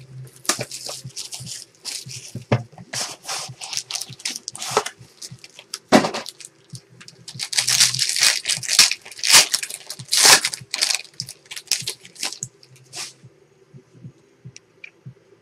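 Plastic wrapping on a pack or box of trading cards being torn open and crinkled: a run of irregular crackling tears and rustles, busiest just past the middle.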